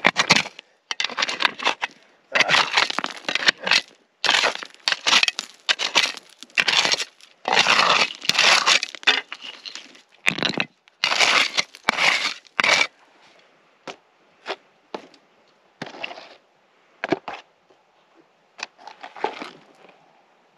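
Hand digging tool chopping and scraping into rocky, gravelly ground to dig out a metal-detector target. A quick, irregular run of loud crunching strokes gives way after about thirteen seconds to fainter, scattered scrapes and clicks.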